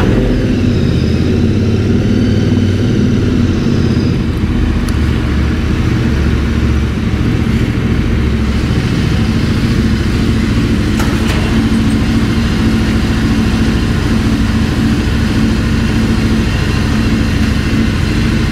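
2019 Royal Enfield Interceptor 650's parallel-twin engine running through aftermarket AEW exhausts as the bike rides at low speed. The engine is not properly warmed up, and a BoosterPlug has just been fitted. The sound echoes off the concrete of the parking garage.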